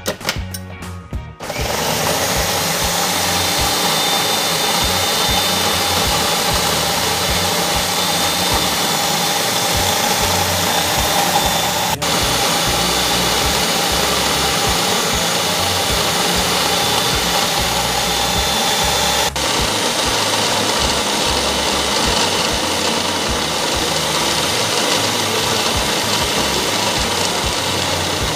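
Food processor motor running steadily, its blade churning minced meat with onion, tomato and herbs into kebab mix. It starts about a second in, after a few sharp clicks.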